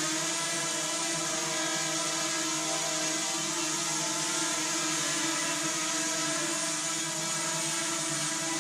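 DJI Mavic Mini quadcopter hovering, its four propellers giving a steady, even-pitched buzzing whine.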